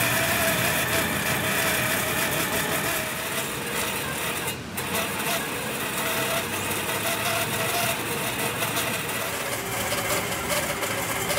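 A machine running steadily, with a wavering mid-pitched whine over a broad mechanical noise and a brief dip a little under halfway through.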